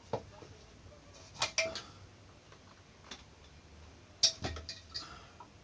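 A few light clicks and clinks of small hard objects being handled, in two clusters, over quiet room tone.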